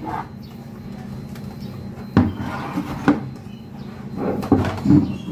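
Large black plastic flower pots knocking and scraping as they are picked up and set down, with sharp knocks about two and three seconds in and a few more near the end.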